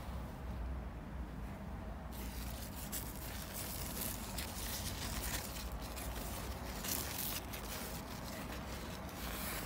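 Large pumpkin leaves rustling and rubbing against the phone as it is pushed in among the vine: irregular scratchy crackling that starts about two seconds in, over a low steady rumble.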